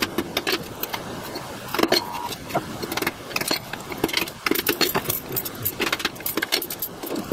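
Claw hammer striking the handle of a screwdriver held against a small transformer, driving it in to smash the casing open for its copper: a string of sharp, irregular metal clinks and knocks.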